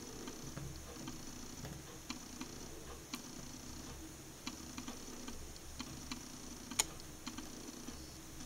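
White ballerina slip-on shoe burning: flames flutter with a low unsteady rustle, broken by irregular small crackles and one sharper pop about seven seconds in.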